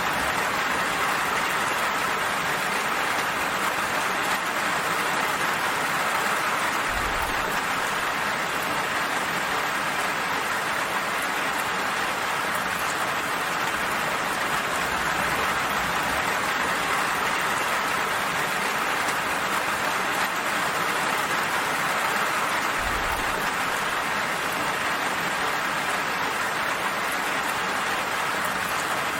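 Steady rain, an even hiss of falling drops with no break.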